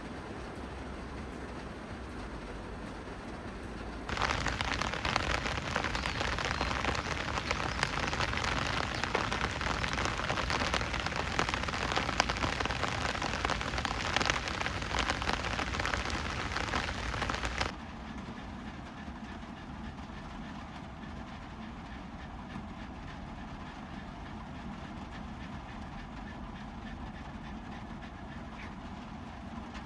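Heavy rain drumming on the roof of a kei van, heard from inside. A much louder downpour stretch starts abruptly about four seconds in and stops just as abruptly at about eighteen seconds.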